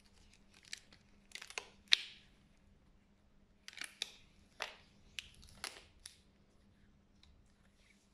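Latex gloves being stretched, pulled at the cuff and rubbed between gloved hands: a string of short rubbing and snapping sounds, the sharpest about two seconds in.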